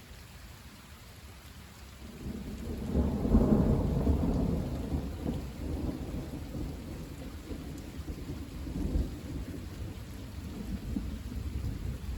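Thunder rumbling over steady rain: the rumble builds about two seconds in, peaks a second or so later, then rolls on and fades, swelling again briefly later on.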